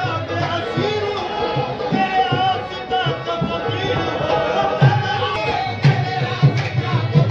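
Sufi devotional singing: a solo voice with wavering, ornamented melody lines over hand drums keeping a steady beat.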